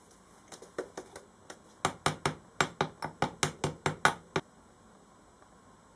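Rapid sharp taps of a thin metal tool scraping and knocking in a tin can of packed moulding sand while the sprue is dug out wider. The taps come a few at first, then about five a second for a couple of seconds, and stop about two-thirds of the way through.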